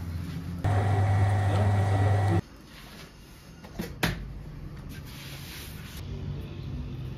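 Bakery dough machine's electric motor giving a loud, steady hum for about two seconds, starting and stopping abruptly. It is followed by quieter workshop noise with one sharp knock about four seconds in.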